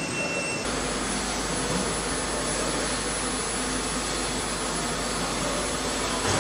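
Steady mechanical noise with a low hum and no rhythm. It changes abruptly in tone about half a second in.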